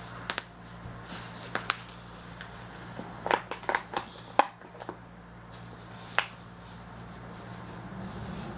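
Miniature packaging being handled and opened: scattered sharp clicks and crackles of cardboard and plastic, with a quick cluster about three to five seconds in, over a steady low hum.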